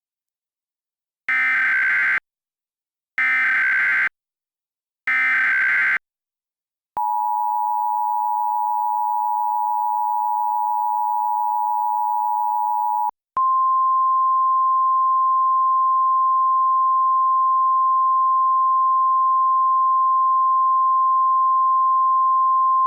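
Emergency Alert System header and attention tones. Three short screeching SAME data bursts of about a second each come first, then the two-tone EAS attention signal held steady for about six seconds, then a single steady alert tone for about ten seconds, as sounded before a broadcast emergency message.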